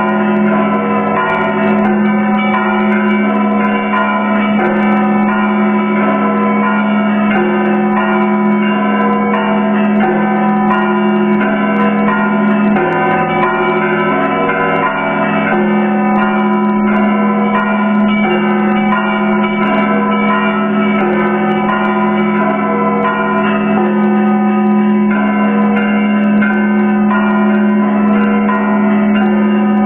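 Russian Orthodox monastery bells ringing together, many bells struck in quick, dense, overlapping patterns over a deep, sustained tone that rings beneath throughout.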